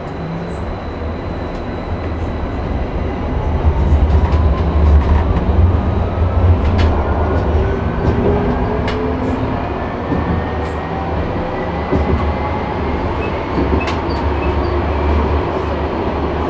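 Nockebybanan light-rail tram running on its line: a steady low rumble, and an electric traction-motor whine that starts a few seconds in and rises slowly in pitch as the tram gathers speed. Scattered sharp clicks from the wheels and track.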